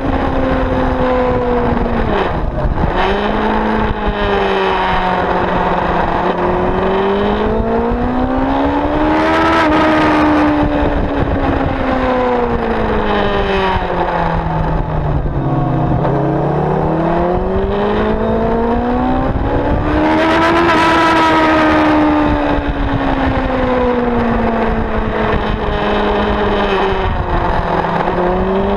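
Motorcycle engine at speed on track, heard onboard. Its pitch rises and falls in long sweeps, climbing to a peak twice and dropping low between, with wind rushing over the microphone.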